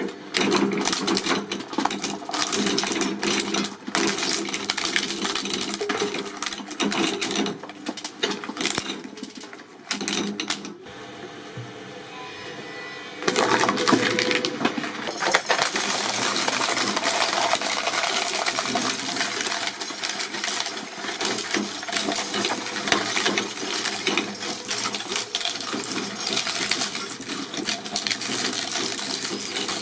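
Shredding machine chewing through material: a dense, continuous clatter of cracks and metallic clinks. About a third of the way through it drops for a couple of seconds to a quieter, steadier running sound, then the loud clatter returns.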